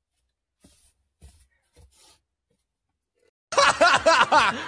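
A few faint soft noises, then about three and a half seconds in people break into loud laughter, pulsing for just over a second before cutting off abruptly.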